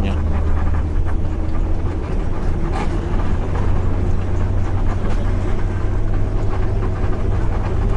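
Intercity bus on the move, heard from on board: a steady low engine drone mixed with road noise.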